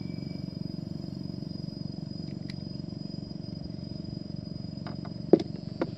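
Steady high-pitched insect drone, cicadas or crickets, over a low steady rumble, with two sharp knocks near the end, the first the louder.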